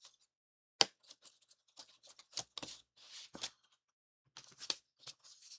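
Small sharp clicks and rustles of thin kit parts being handled and worked free from a sheet, with one sharp snap about a second in.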